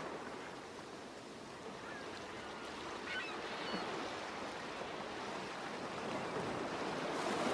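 Steady outdoor ambient noise, an even hiss, with a few faint high chirps between about two and four seconds in.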